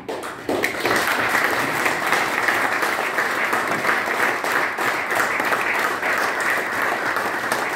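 A small group of people applauding, the clapping starting right at the beginning and holding steady.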